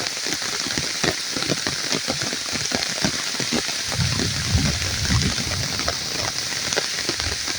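Rain falling steadily: a dense hiss with many separate drops tapping close by. A low rumble comes in about four seconds in and fades out after a couple of seconds.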